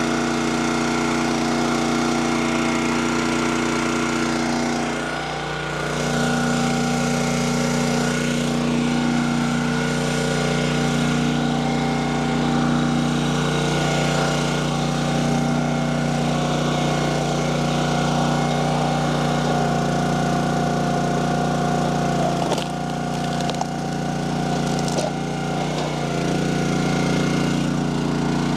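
Small gasoline engine of a log splitter running steadily, briefly bogging down in pitch a few times as it takes load.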